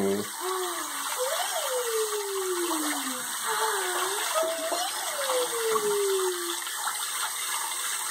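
Kitchen faucet running steadily into a sink of bathwater. Two long whining cries sound over it, each rising briefly and then sliding slowly down in pitch.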